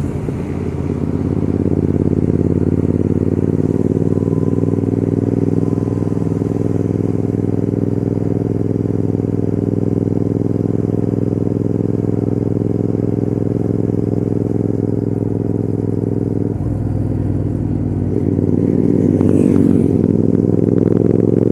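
Royal Enfield Continental GT650's 648 cc parallel-twin engine and exhaust pulling under throttle while riding, its note climbing slowly in pitch. About 17 seconds in, the note breaks briefly and then climbs again.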